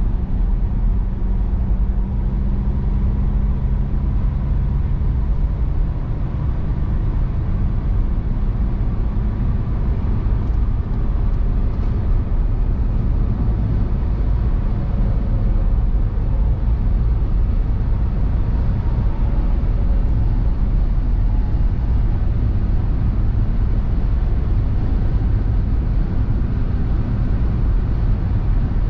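Car cruising at highway speed on the Autobahn, heard from inside the car: a steady low rumble of tyre and road noise with engine hum, unchanging throughout.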